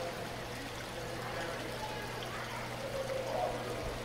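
Water running and trickling steadily into a shallow aquarium tank, over a constant low hum.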